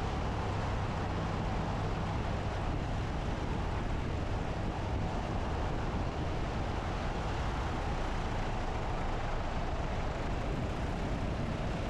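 Cessna 172B's six-cylinder Continental O-300 engine and propeller at low approach power on final, with airflow rushing past. The engine's steady low tone fades about halfway through as power comes back for landing.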